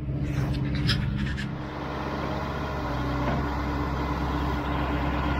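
A machine's engine running steadily as it lifts a large maple log, with a few knocks in the first second and a half and a slight shift in pitch soon after.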